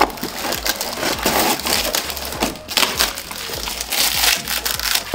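Plastic wrapping crinkling and cardboard packaging rustling in a stream of crackles as a plastic lunchbox in its clear plastic bag is lifted out of a shipping box.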